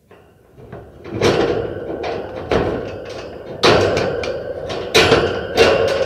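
Metal wire-mesh cage being knocked and shaken, rattling with a metallic ring. It starts faintly and builds, about a second in, into a series of about five loud clanging hits roughly a second apart.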